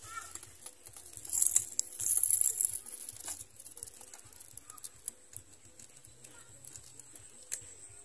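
Dry grass and leaves of a small bird's nest rustling and crackling as they are handled. The rustling is loudest for about two seconds starting a second in, then dies down to a few scattered clicks.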